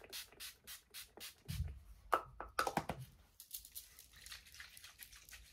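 Urban Decay All Nighter setting spray being pumped onto the face: a rapid run of short misting sprays, about four a second, for the first few seconds, then fading to faint rustling.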